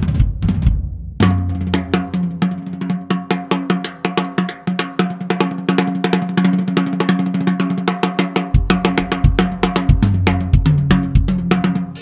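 Tama Starclassic walnut/birch drum kit played solo. A few tom hits open, then from about a second in comes a fast, dense run of snare strokes with the drums ringing. Bass drum hits come back in near the end.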